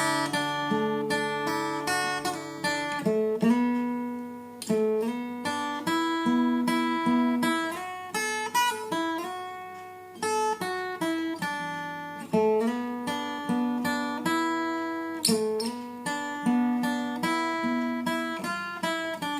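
Instrumental break of a song: acoustic guitar playing a melody of plucked notes over strummed chords, with no singing.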